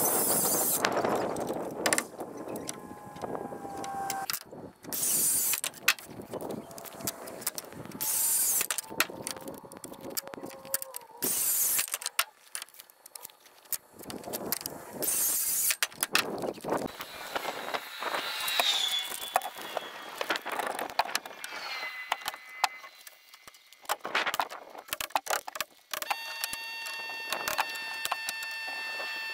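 Building-site work noise: a handheld circular saw cutting lumber in short loud bursts, mixed with knocks and clatter of framing work. Over the last few seconds a steady sound made of several even tones takes over.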